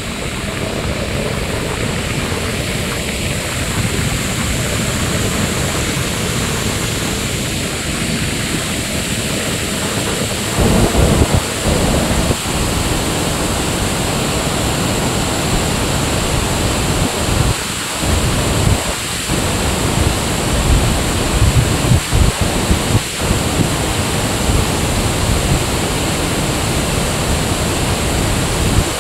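Floodwater pouring through a dam's opened spillway gates: a loud, steady roar of rushing water. From about ten seconds in, irregular gusts of wind buffet the microphone.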